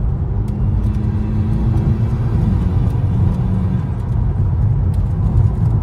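Steady engine and road rumble inside the cabin of a VW Scirocco on the move, with an engine note that holds steady for a few seconds before easing off. The engine runs smoothly without misfiring on its newly replaced cylinder-3 coil pack.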